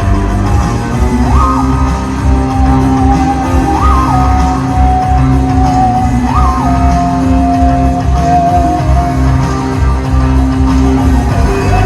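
Music with a heavy bass and a held melody line that slides up and back down three times.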